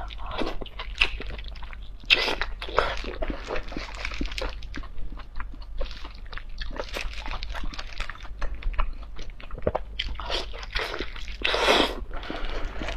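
Close-miked wet mouth sounds of eating oily braised lamb intestines: biting, chewing and juicy smacks and squelches in a dense, irregular run, with a longer, louder wet suck near the end.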